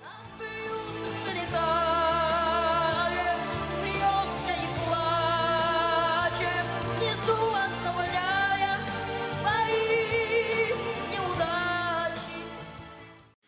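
Music with a singing voice wavering over sustained low notes, fading out near the end.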